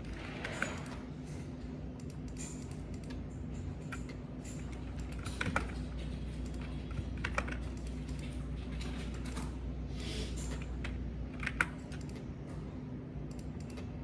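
Typing on a computer keyboard in short, irregular bursts of keystrokes, over a steady low hum.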